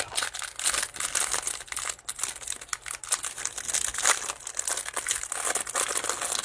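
Plastic wrapper of a trading-card hanger pack crinkling and crackling as gloved hands tear it open and pull it off the stack of cards.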